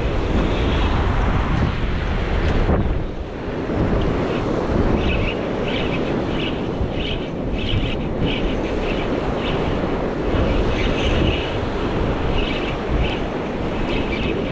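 Wind buffeting the microphone over surf washing on a sand beach. From about five seconds in, a spinning reel is wound and ticks regularly, about two to three times a second.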